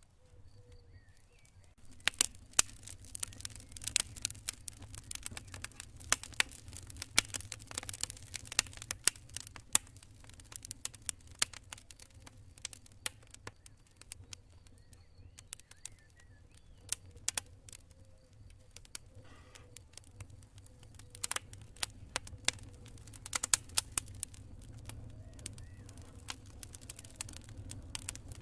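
Campfire burning: wood crackling and popping in quick, irregular sharp snaps over a low, steady rumble of the flames. The crackling starts about two seconds in. A faint cricket chirps at the start.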